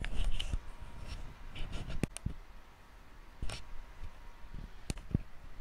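Light handling noise: PVC pipe pieces being moved and handled, a soft rustle at first, then about five scattered sharp clicks and knocks of plastic.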